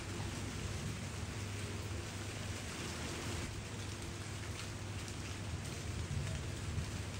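Monsoon rain falling steadily, an even hiss of drops on surfaces with a steady low rumble underneath.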